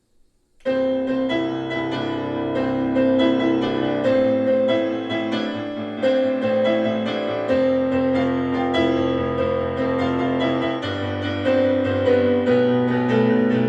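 Intro music led by piano or keyboard, starting suddenly about half a second in, with a melody over held bass notes.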